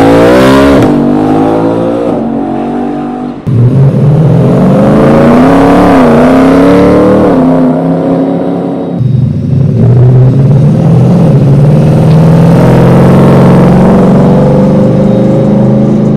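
Ford Raptor's swapped-in 5.0-litre Coyote V8 accelerating hard, its engine note climbing in pitch in repeated pulls and dropping back between them. There is an abrupt break about three and a half seconds in.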